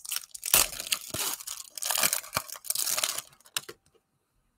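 Cellophane wrapper of a Panini Prizm basketball-card cello pack being torn open and crinkled by hand, a dense crackling that stops about three and a half seconds in.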